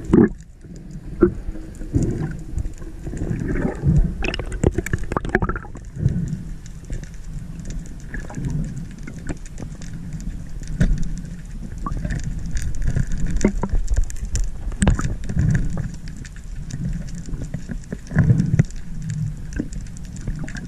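Underwater noise picked up by a diving camera: an irregular low rumble of moving water with many scattered clicks and knocks.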